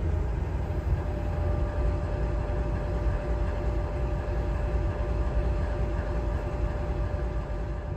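CSX CM44AC diesel-electric locomotive, a Wabtec rebuild of a GE AC44CW, standing with its diesel engine running: a steady low rumble, with a steady whine joining in about a second in.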